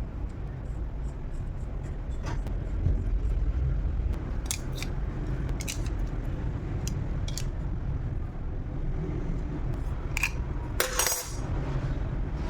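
Scattered light metallic clicks and clinks of small tools and parts being handled, over a steady low rumble, with a short louder rasp near the end.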